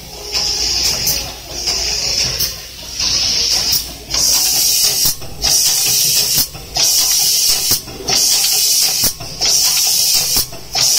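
Pneumatics of a cap assembly machine: repeated bursts of compressed-air hiss, about one a second, separated by short gaps and sharp clicks as the machine cycles.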